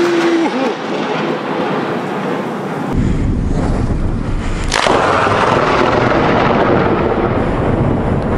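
Close thunder in a rainstorm: loud rolling thunder with rain, then a second sharp crack of thunder about five seconds in, followed by a long rumble.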